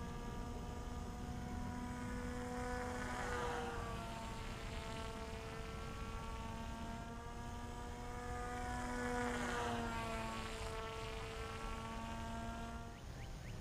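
Electric motor and propeller of a Volantex FPVraptor V2 RC glider flying overhead: a steady whine that drops in pitch twice as the plane passes, about three and a half and ten seconds in. The whine stops about a second before the end.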